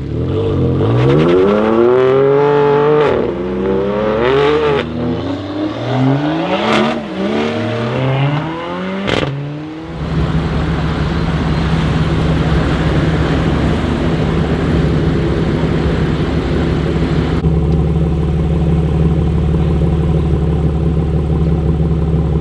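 BMW M3 F80's twin-turbo inline-six through a full titanium Innotech Performance exhaust, revved hard several times in a row with a few sharp crackles between the revs. About halfway through it settles into a steady, loud idle.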